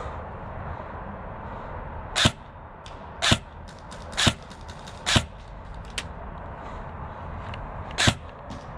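Airsoft guns firing single shots: four sharp shots about a second apart, another near the end, and fainter distant shots in between.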